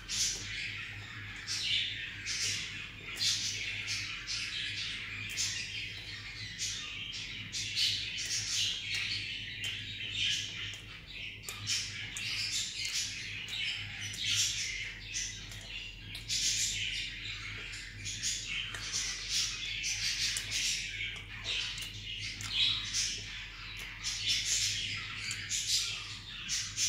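Many small birds chirping and chattering together in a dense, irregular stream of short high chirps, over a steady low hum.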